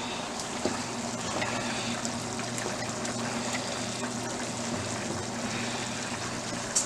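A wooden spoon stirring a pot of thick chili, with wet, sloshing stirring sounds over a steady hum.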